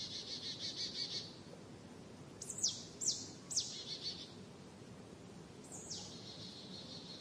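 Songbirds singing in a forest at evening: a quick trill at first, then several high notes that sweep down in pitch, each running into a short buzzy trill, over a faint forest background.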